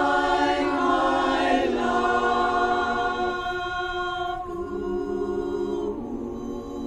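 Women's barbershop chorus singing a cappella in close harmony, holding sustained chords that change a few times and grow softer toward the end.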